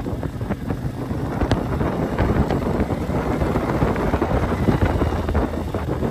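CFMOTO 450MT motorcycle's parallel-twin engine running while riding an off-road track, with wind buffeting the microphone and scattered knocks and rattles.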